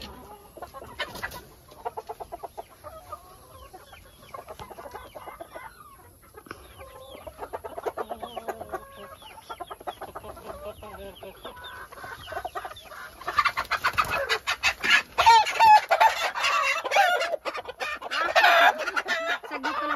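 Rhode Island White chickens clucking in many short, rapid calls, which become much louder and denser from about two-thirds of the way in, with loud squawking near the end as a loose hen is grabbed by hand.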